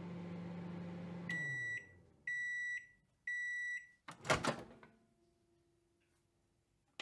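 Microwave oven running with a steady hum that winds down and stops, then three beeps about a second apart signalling the end of cooking. About four seconds in, the door is opened with a sharp clunk, the loudest sound.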